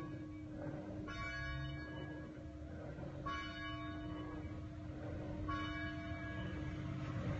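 A single church bell tolled steadily, struck about every two seconds. It sounds three strokes, about one, three and five and a half seconds in, and its hum rings on between them.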